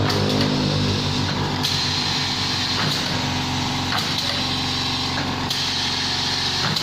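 Automatic screen printing machine running through its cycle: a steady motor hum, with a sharp click every second or so and a high hiss that switches on and off.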